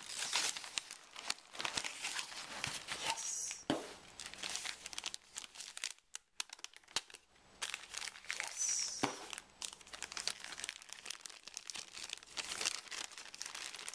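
Brown kraft packing paper being crumpled and rustled by hand as it is pulled out of a cardboard box, a dense irregular crinkling with a short lull about halfway through. Near the end, a clear plastic bag crinkles as it is handled.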